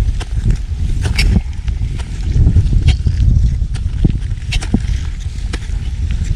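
Footsteps crunching on hard snow, a sharp step roughly every half second to second, over a steady low rumble.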